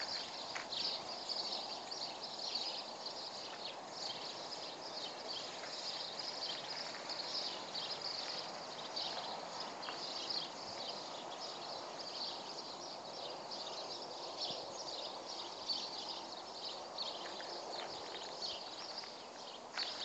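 Many small birds chirping busily, short high chirps overlapping several times a second, over a steady low background hush.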